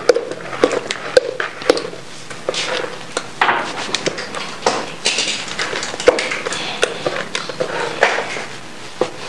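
A spoon stirring thick blended black-eyed-pea batter in a plastic bucket: repeated knocks of the spoon against the bucket about twice a second, with wet squelching of the batter between them.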